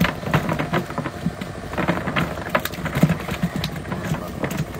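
Wet cast net shaken out over a crate: a rustle of mesh with many irregular taps and patters as the catch drops out into the crate.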